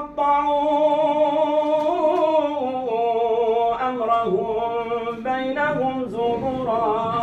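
A lone man's voice chanting a religious recitation unaccompanied, holding long notes that slide and waver in pitch, with short breaks between phrases.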